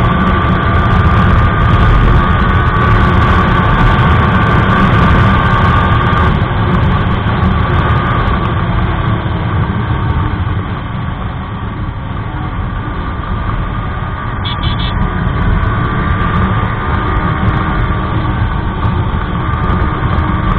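Yamaha R15 v3's single-cylinder engine running at road speed under heavy wind noise on the microphone. The engine note eases off about six seconds in and the sound drops as the bike slows, then builds again toward the end.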